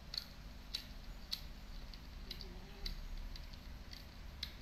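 Ragdoll cat chewing a whole quail, a series of sharp, irregular crunches as its teeth work through bone and flesh.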